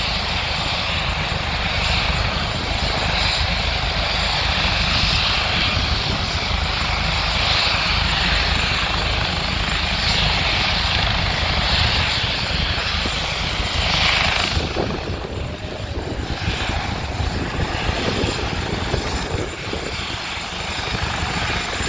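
Helicopter on the ground with its large rotors turning at speed, giving a loud, steady rush of rotor and engine noise with blade slap. It eases a little about fifteen seconds in.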